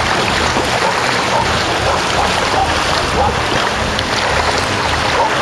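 Shallow ocean surf washing around, with steady wind buffeting the microphone.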